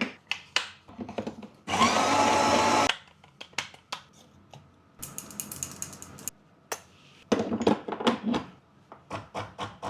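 Coffee grinder running for about a second, grinding measured beans, then a second, quieter whirring stretch a few seconds later, among many sharp clicks and knocks of handling the machine and its parts.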